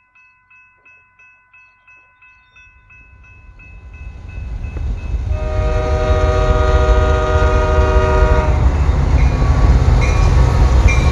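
A grade-crossing bell rings about three times a second, soon buried under the rising rumble of an approaching train. The train's horn sounds one long blast of about three seconds as it passes, over a heavy rumble that cuts off abruptly near the end.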